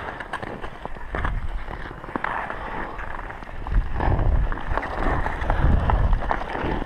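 Ice skate blades scraping across rough outdoor ice in strides, with wind buffeting a helmet-mounted camera's microphone and a few sharp clicks; it gets louder about four seconds in.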